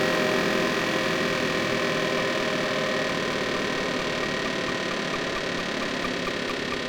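Electronic fixed-media music: a dense droning noise texture with sustained tones, slowly fading and growing duller. Near the end, short pitched blips begin repeating at about three a second.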